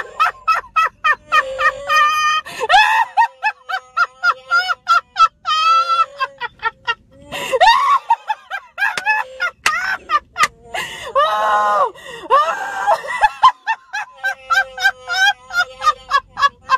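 Electronic Chewbacca mask's sound box playing its recorded Wookiee roar each time the wearer's mouth opens, mixed with a woman's high-pitched, uncontrollable laughter in quick repeated bursts.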